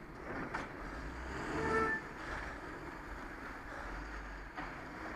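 Box lorry's diesel engine running with a low rumble, under wind noise on the microphone. About two seconds in, a short high-pitched squeal sounds for about half a second.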